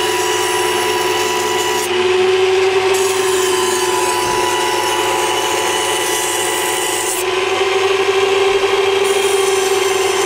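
A chef's knife blade is ground against the spinning wheel of an electric knife sharpener: the machine's motor hums steadily under a rasping grind. The grinding grows louder in two passes, one about two seconds in and another around seven seconds in.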